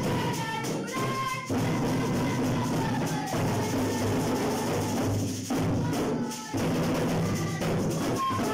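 Assiko percussion ensemble playing a driving rhythm on a large square frame drum, djembes and a tambourine, with a boy's voice singing over it through a microphone.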